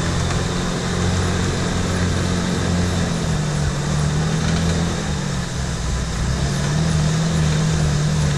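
Off-road SUV engine running steadily at low revs as it crawls through a muddy rut; the pitch sags a few seconds in and picks up again near the end.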